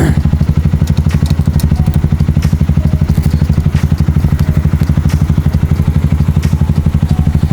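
An engine idling, a steady fast low pulsing, with a few light clicks and clatter over it.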